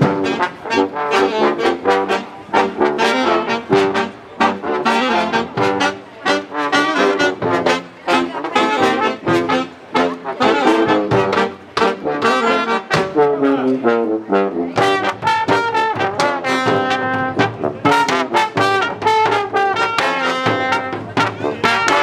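Street marching band playing: trumpets and saxophone carrying the tune over a large brass bass horn and a steady bass-drum beat.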